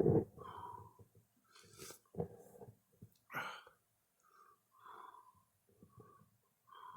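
A man breathing raggedly through the burn of a superhot pepper: sharp, noisy inhales about two and three and a half seconds in, with small strained, wheezy breaths between them, signs of intense capsaicin pain.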